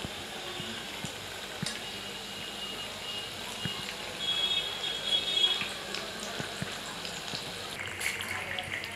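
Batter-coated potato slices (aloo pakoras) deep-frying in hot oil: a steady sizzling and bubbling with scattered crackles. A faint high whistling tone comes and goes in the middle.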